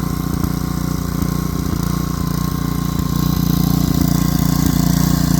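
An engine running steadily, growing a little louder about three seconds in.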